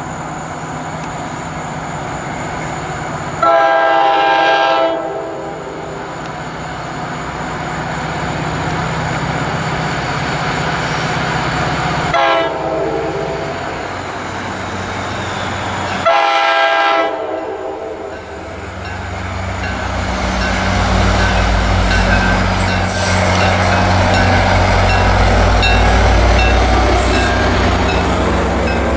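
NJ Transit diesel-hauled commuter train approaching and passing. Its horn sounds a long blast, a short one and another long one. From about two-thirds of the way in, the locomotive's deep engine drone and the rumble of wheels with regular clicking over the rails swell as the train passes close.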